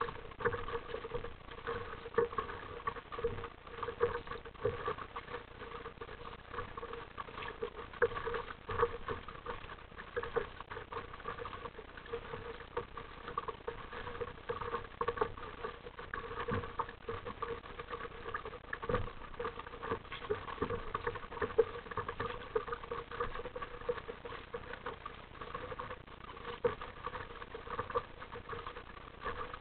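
Sea water splashing and lapping against the hull of an RTM Mambo sit-on-top kayak under paddle strokes: a constant crackling patter with a louder splash every second or two.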